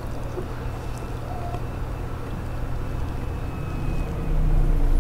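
Low, gusty rumble of wind buffeting the microphone on an open boat, growing louder near the end.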